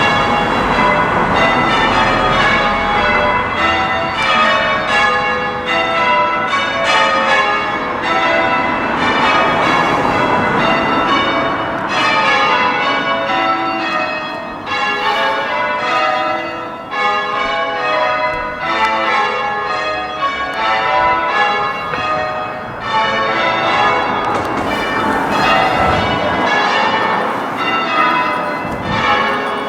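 Front six bells of a ring of eight church bells being change-rung, the lighter, higher-pitched bells of the ring, in a steady, unbroken run of overlapping strikes.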